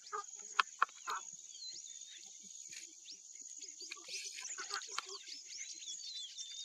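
Grassland dawn ambience: many birds whistling and chirping over a steady high insect trill, with a couple of sharp clicks in the first second.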